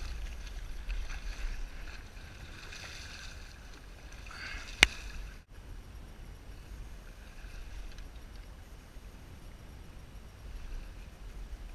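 Choppy sea water lapping and slapping against a kayak hull, over a low rumble. One sharp click comes a little under five seconds in.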